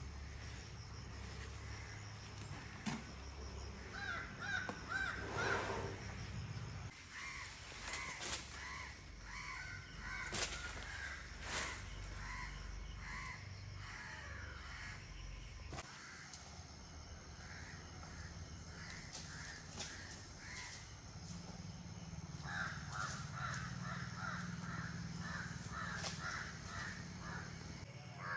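Birds calling outdoors: runs of short, repeated calls in three bouts, about four, eight and twenty-two seconds in, with a few sharp clicks between them over a low steady background rumble.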